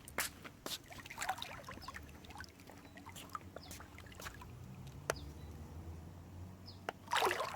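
Pool water trickling and lapping, over a faint steady low hum with scattered small clicks and a brief louder burst near the end.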